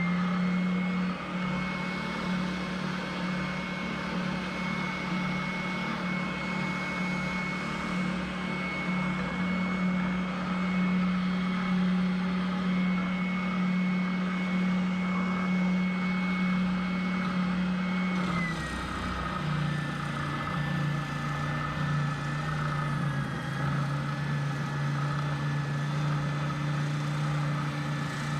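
Electric router motor running steadily with a high whine, cutting; about 18 seconds in its pitch drops a little and holds at the lower pitch.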